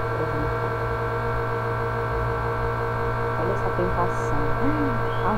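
Electric fan running with a steady, loud hum.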